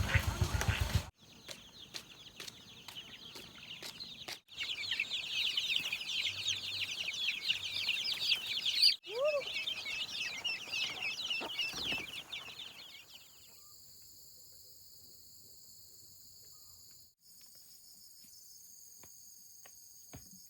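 A flock of chicks cheeping densely and rapidly, starting about four seconds in and fading out after about eight seconds, leaving faint hiss.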